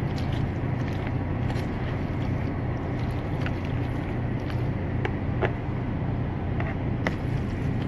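Steady low hum inside a parked semi-truck's cab with the air conditioning running. Over it come a few faint clicks and scrapes of a spoon stirring macaroni and cheese in a plastic bowl.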